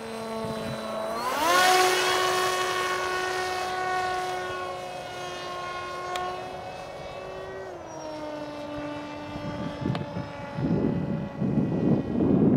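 Small electric RC flying wing's brushless motor and propeller whining as it flies: a steady pitched whine that rises sharply about a second in, holds, then drops in pitch near eight seconds and fades. Gusts of wind buffet the microphone over the last couple of seconds.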